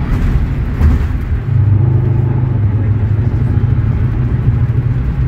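Mercedes-Benz O500U city bus's OM936LA Bluetec 6 straight-six diesel running under way, heard from inside the passenger cabin. Its steady drone dips briefly about a second and a half in, then pulls on evenly.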